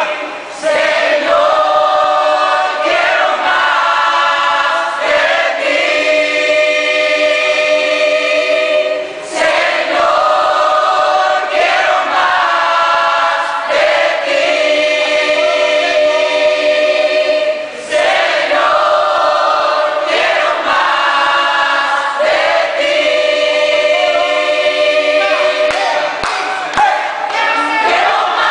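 A church choir of men and women singing together in long held phrases, with a brief break between phrases about every eight or nine seconds.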